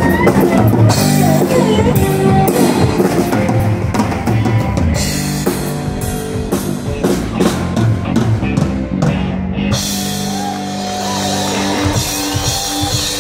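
Live country band playing an instrumental passage: drum kit and electric guitars. The cymbals stop abruptly about ten seconds in, leaving held notes ringing.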